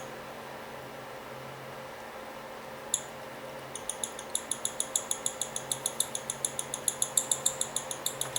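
Baby bird begging for food while its mother feeds it: a fast, even run of short, high-pitched chirps, about four a second, starting about four seconds in after a single chirp.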